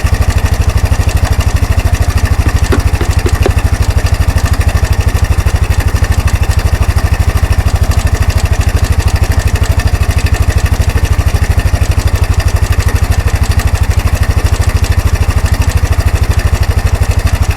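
Kawasaki 300 4x4 ATV's single-cylinder four-stroke engine idling steadily, with a fast, even pulse.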